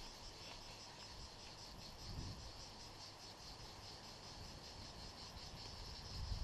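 Cicadas buzzing in the trees: a steady, fast-pulsing high drone. There are a couple of low bumps, about two seconds in and again near the end.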